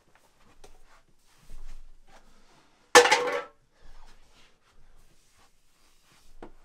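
An aluminium drink can crushed underfoot, one short, loud metallic crunch about three seconds in. Softer knocks and rustles come before and after it, with a small click near the end.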